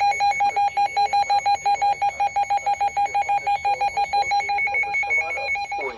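An electronic alert tone beeping rapidly at one steady pitch, several beeps a second, from a weather radio sounding over a broadcast severe thunderstorm warning.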